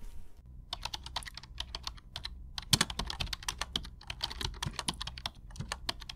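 Rapid, irregular clicking and tapping, several clicks a second, starting about half a second in, with a louder cluster near the middle.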